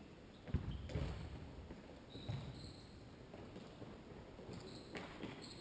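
Futsal ball being kicked and bouncing on an indoor court: a few dull, echoing thuds. Between them come short, high squeaks of players' shoes on the floor.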